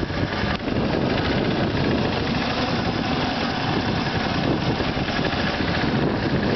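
Go-kart's small engine running steadily as the kart drives along.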